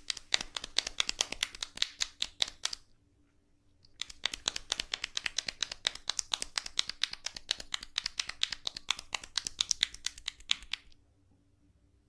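Hands rubbing quickly over a person's face and hair during a head massage, a fast run of scratchy skin-on-skin strokes at about nine a second. The strokes stop for about a second after the first three seconds, then run on until near the end.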